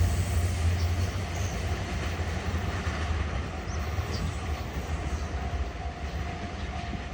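Freight train's container wagons rolling past at a level crossing: a steady rumble with wheel clatter that slowly fades as the train goes by.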